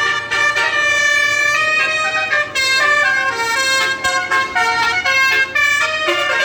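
Bus "telolet" musical horn playing a tune: several horn tones sounding together and stepping from note to note, some held, some short, with a few brief breaks between phrases.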